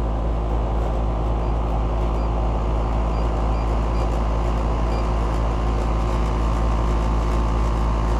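Outdoor air-conditioner condensing unit on R-22 running steadily: a low compressor hum under the even rush of the condenser fan.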